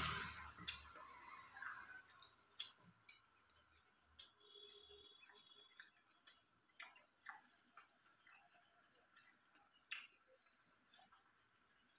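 Near silence broken by faint, irregular clicks from people eating rice and curry by hand off steel plates, the loudest about two and a half seconds in and again near the end.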